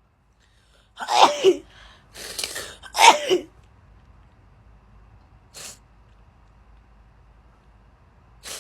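A girl sneezing twice in a sneezing fit, about a second in and again two seconds later, with a sharp breath between them. Two short breathy sounds follow, a few seconds apart.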